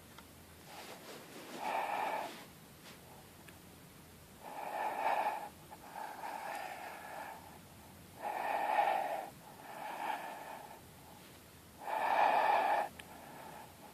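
A person breathing very deeply through a wide-open throat: slow, noisy breaths about a second long, four louder ones with softer ones between them.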